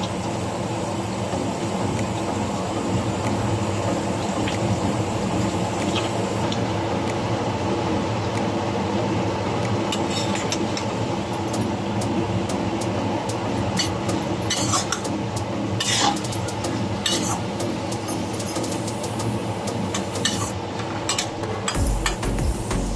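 Stirring a pan of greens and potatoes, with a spatula clinking and scraping against the metal at intervals over a steady hiss.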